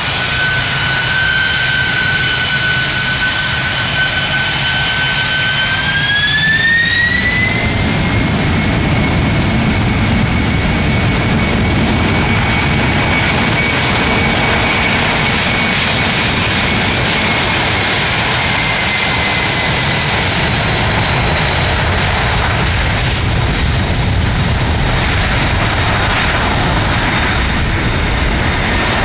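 Boeing 747-400F freighter's four jet engines spooling up for takeoff: a high fan whine rises in pitch about six seconds in, then a heavy, steady roar of full thrust takes over.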